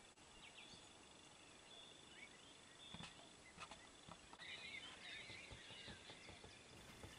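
Near silence: faint outdoor ambience with scattered birdsong, a denser patch of chirping a little past halfway, a steady faint high tone and a few soft clicks.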